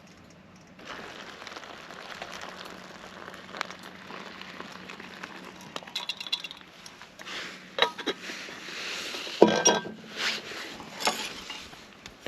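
Metal camp cookware and utensils clinking and scraping, with scattered knocks and one sharp ringing metal clink about nine and a half seconds in.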